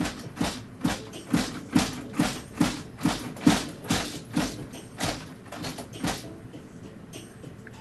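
A steady series of short knocks or taps, a little over two a second, that stops about six seconds in.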